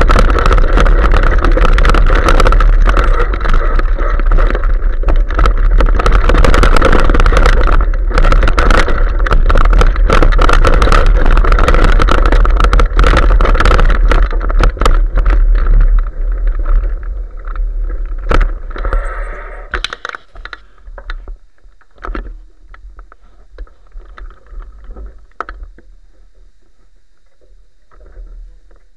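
Bicycle riding over a bumpy leaf-covered dirt trail, picked up by a bike-mounted action camera: a loud, steady rush of wind and vibration with many rattling knocks from the bumps. About sixteen seconds in it fades away as the bike slows and stops, leaving only scattered clicks and leaf rustles.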